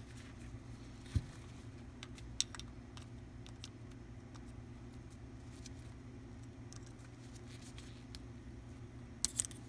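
Small metallic clicks and ticks of snap ring pliers working at an internal snap ring in the end of a steering damper body, with one low knock about a second in and a pair of sharper clicks near the end, over a steady low hum.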